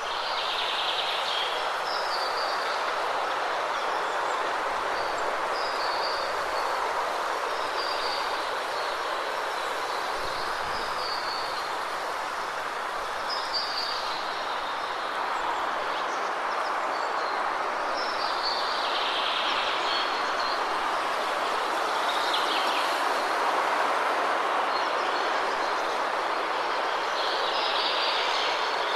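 Waterfall rushing steadily, with small birds chirping in short calls every few seconds over it.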